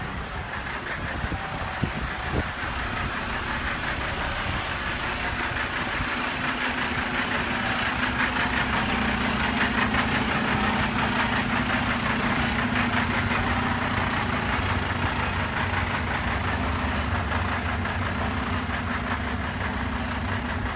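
Mercedes-Benz Arocs 4142 truck's straight-six diesel engine idling steadily, a low even hum that grows slightly louder about a third of the way in.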